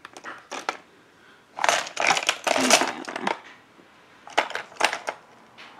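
Makeup items and brushes clattering and clicking as they are rummaged through in a search for a lip brush: a few clicks at first, a dense stretch of clatter about two seconds in, then a few more clicks near the end.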